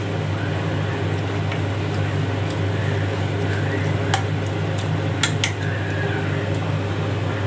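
A slotted metal spoon stirs chicken pieces in gravy in a large metal pot, with a few sharp clinks of the spoon against the pot about four and five seconds in. A steady low hum runs underneath.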